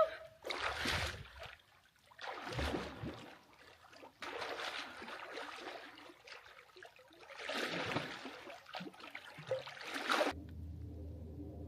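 Lake water splashing and sloshing in several bursts as a person swims. Near the end the splashing stops and a low steady hum takes over.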